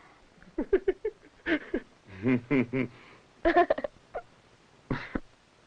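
People laughing in several short bursts, one a quick run of about four 'ha' pulses, with pauses between.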